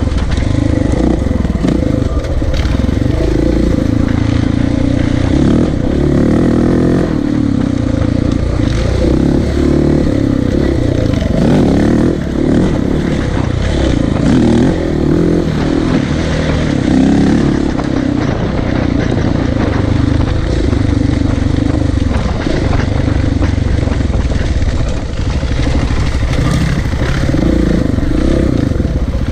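Off-road motorcycle engines running and revving while being ridden over a rough bush track, the note rising and falling continually. Among them is the big single-cylinder engine of a KTM 690 Enduro.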